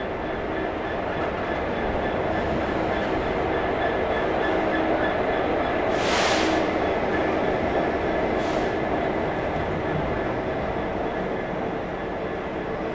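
A Class 66 diesel freight locomotive, with its two-stroke V12 engine running, passes at the head of a container train. The container wagons follow, rolling by with a steady rumble on the rails. Two brief hissing bursts come about six and eight and a half seconds in.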